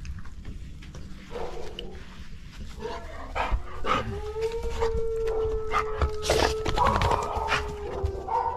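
A dog howling, a few short cries and then one long steady howl from about four seconds in, with scattered clicks and knocks. The neighbour's dog is howling while left alone; its owner is away.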